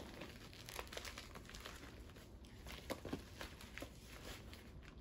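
Faint, irregular crinkling and rustling of a plastic poly mailer envelope as it is opened and the books inside are pulled out.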